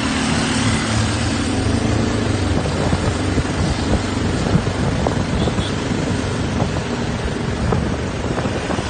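Wind rushing over the microphone of a moving four-wheeled scooter, over the steady hum of its engine and tyres on the road.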